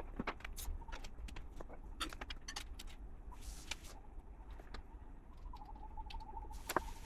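Plastic LEGO pieces clicking and clattering as they are handled and pressed together, with two short rustling swishes. A faint wavering tone comes in near the end.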